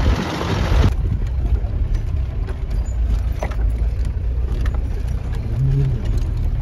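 Car driving, heard from inside the cabin: a steady low rumble of engine and road, with scattered faint clicks and rattles. A louder rushing noise covers the first second and then cuts off abruptly.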